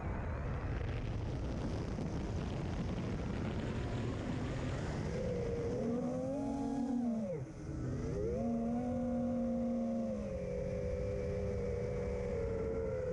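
FPV quadcopter's electric motors and propellers whining, the pitch rising and falling with the throttle. It drops sharply about seven and a half seconds in, then climbs back. A steady rushing noise runs underneath.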